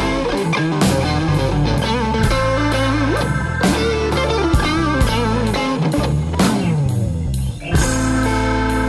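Instrumental stretch of a blues-rock song: an electric guitar plays a lead with bent, wavering notes over bass and drum kit. A falling run leads into a brief drop in the sound about three-quarters of the way through.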